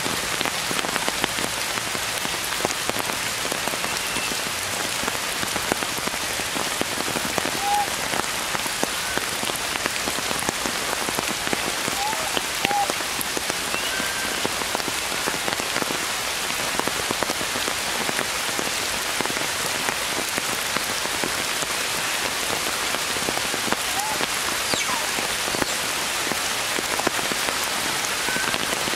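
Steady rain falling on tree foliage, a dense even patter of drops. A few faint short chirps sound now and then through it.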